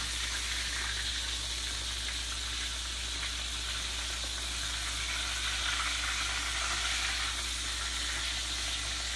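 Egg-battered pieces of fish frying in hot oil in a skillet, a steady sizzle.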